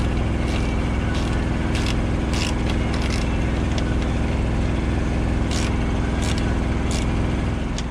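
Heavy diesel truck engine idling steadily, with about nine short clicks and scrapes scattered irregularly over it as the air cleaner canister is handled.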